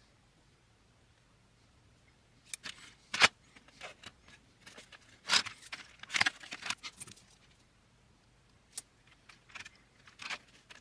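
Scattered light clicks and scrapes of small plastic parts being handled: 3D-printed case clips picked up and pressed onto the edge of a Commodore 64's plastic case. They start about two seconds in, with one sharper click a little after three seconds.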